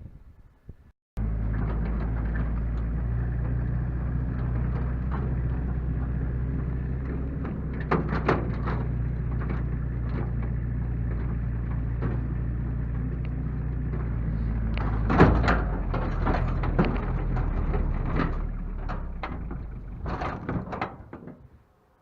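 An engine running steadily, with many sharp knocks and rattles over it. It starts abruptly about a second in and dies away just before the end.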